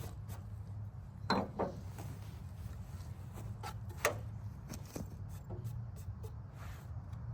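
Scattered light knocks and clacks of wooden boards being handled, about a dozen in all, the sharpest about a second and a half in and about four seconds in. Under them runs a steady low hum.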